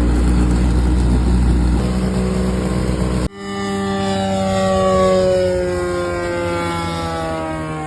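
Propeller engine of a small homemade airplane running steadily. After a sudden cut about three seconds in, the plane's engine passes by in flight, its pitch falling slowly.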